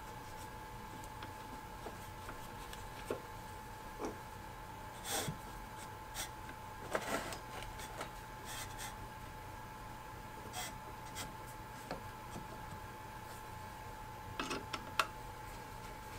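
Light scrapes, taps and clicks of a hand scribe against a wooden yardstick and a steel bar as the bar is shifted and a cut line is marked, over a steady faint hum. The sharpest clicks and scrapes come about a third of the way in and again near the end.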